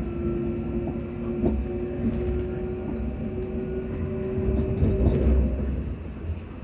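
Class 334 electric multiple unit's traction motors whining at a steady pitch, heard from inside the carriage over the low rumble of the wheels. Occasional knocks come as the wheels cross pointwork. The whine fades out near the end.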